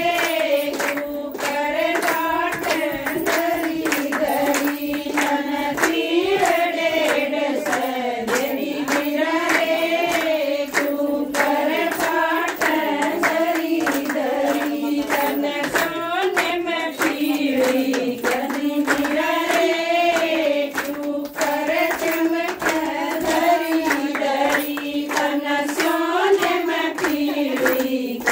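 Women singing a Haryanvi folk song together, with steady hand clapping keeping the beat.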